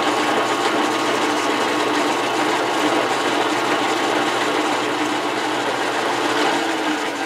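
Older metal lathe running under power while a boring bar takes a fine finishing cut inside a metal tube to enlarge the bore: a steady machine whine with a faint high tone, easing off near the end.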